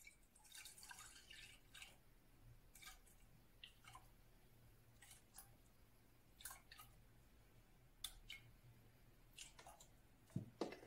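Milk pouring faintly from a carton into a stainless steel saucepan, a soft splashing pour near the start and then scattered small drips and splashes, with a couple of louder knocks near the end.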